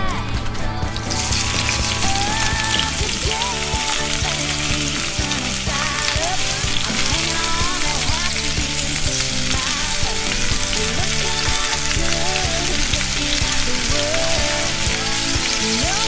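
Beaten egg sizzling in an oiled frying pan as a rolled omelette cooks, with background music underneath. The sizzling sets in about a second in and stays steady.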